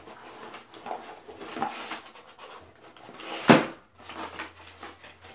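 A small cardboard shipping box being handled and pulled open by hand: cardboard rubbing and scraping, with one sharp loud crack or rip about three and a half seconds in.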